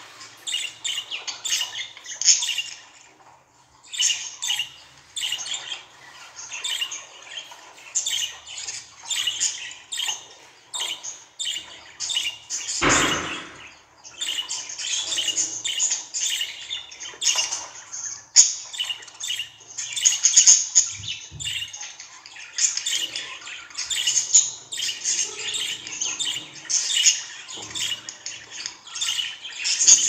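Budgerigars chirping and chattering in a steady run of quick, short calls. A brief, louder noisy burst comes about halfway through.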